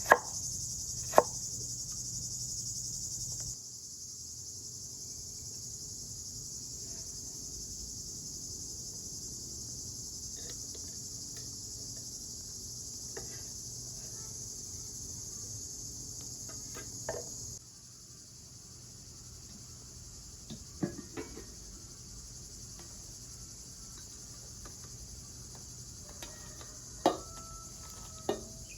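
Crickets chirring steadily in a high-pitched insect chorus, with a few sharp knocks and clinks scattered over it, two in the first second or so and several more in the second half.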